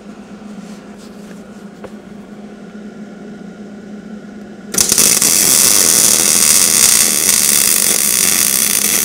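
Wire-feed (MIG) welding arc striking about five seconds in and burning with a loud, steady crackle while a spacer is welded onto a steel tooling arm, the Hobart welder turned up to setting 5 for a hot, deep-penetrating weld. Before the arc, only a low steady hum.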